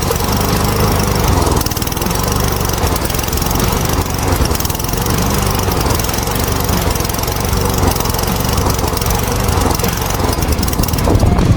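The Cub Cadet push mower's Powermore 173cc single-cylinder engine running steadily.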